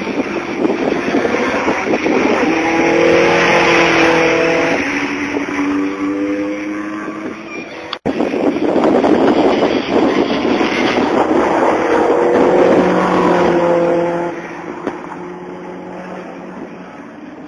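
Cars passing at speed on a race circuit during a track day, their engine notes rising and falling as each goes by: one in the first half, then, after a sudden break about eight seconds in, another.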